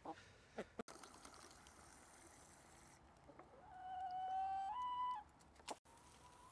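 A chicken gives one drawn-out call about four seconds in, holding a note and then stepping up in pitch, with a few faint clicks and otherwise low background.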